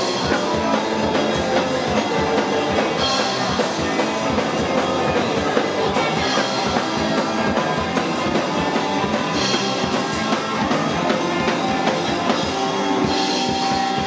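Loud, upbeat music with a steady drum beat.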